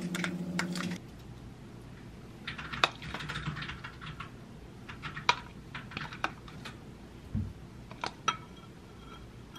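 A metal spoon clicks and scrapes in a ceramic bowl over a steady low hum, which stops after about a second. Then comes a series of scattered spoon clinks and taps on ceramic bowls, a few sharp and briefly ringing, with a soft thump near the end as a bowl is set down.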